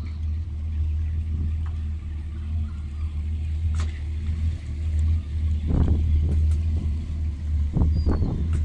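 Volvo Penta AQ170 four-cylinder petrol engine driving a 280 sterndrive at slow manoeuvring speed: a steady low rumble. A few short bursts of rushing noise come in about six seconds in and again near the end.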